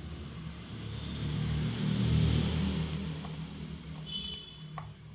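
A low rumble that swells to its loudest about two seconds in and then fades, as a vehicle passing by. A short, high double chirp comes near the end.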